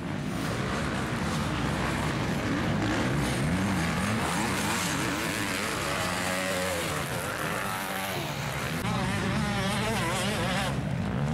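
Motocross bike engines revving on the track, their pitch rising and falling over and over with throttle and gear changes.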